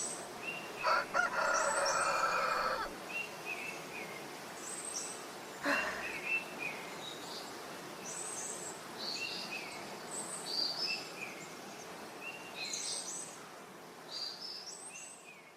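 Small birds chirping in short, high, repeated phrases, with a rooster crowing once, lasting about two seconds, starting about a second in. A short knock comes just before six seconds.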